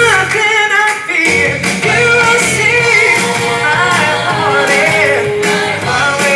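Music with a singing voice over a full band backing.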